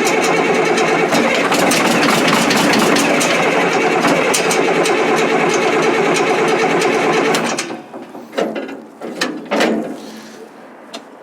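Caterpillar 977L track loader's diesel engine being cranked over on the starter with a steady, even rhythm for about seven and a half seconds without catching, then the starter stops. A few short, quieter noises follow. The engine is not firing because it is starved of fuel, with fuel pouring out at a leaking bleeder.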